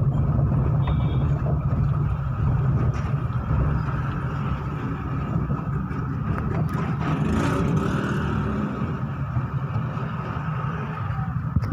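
Steady engine and road noise of a moving car, heard from inside its cabin.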